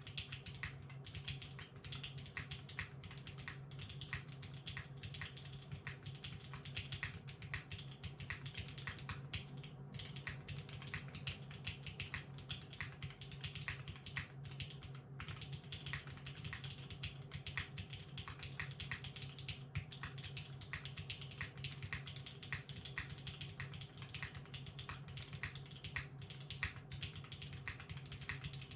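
Steady, continuous typing on a 60% mechanical keyboard: broken-in vintage Cherry MX Black linear switches with GMK Classic Blue keycaps on an aluminium plate, several keystrokes a second.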